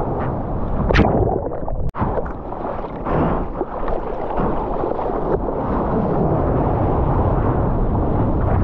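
Sea water washing and splashing over a camera held at the waterline, a deep muffled rush with sharp splashes, as a surfer's hands paddle through the water beside the board. The sound briefly cuts out just before two seconds in.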